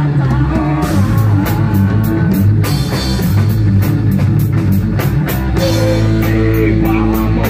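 A rock band playing live: electric guitar, bass guitar and a drum kit, with the cymbals struck in a steady beat.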